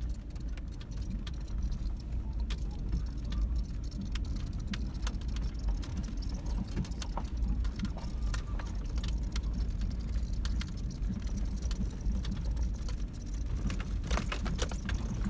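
Toyota 4Runner driving on an icy dirt road, heard from inside the cab: a steady low road rumble with many small clicks and rattles on top.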